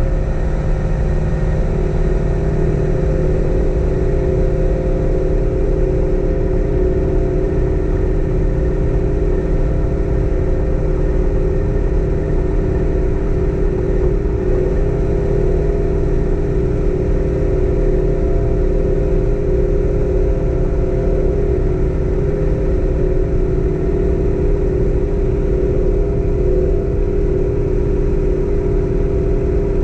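Car engine running steadily with its pitch unchanging, heard from inside the car with a constant hum.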